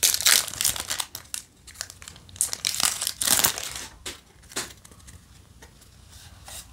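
Plastic booster pack wrapper crinkling as it is torn open and handled. The crackle is loudest in the first second and again from about two and a half to three and a half seconds in. After that only quieter handling is heard.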